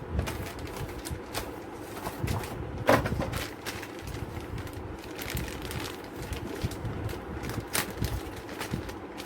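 Scattered clicks and knocks of a motherboard, its I/O shield and packaging being handled on a work surface, the sharpest knock about three seconds in.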